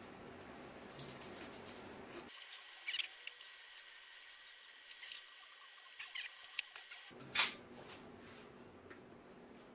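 Scattered sharp snips and clicks of hands cutting and working toy packaging, the loudest about seven and a half seconds in.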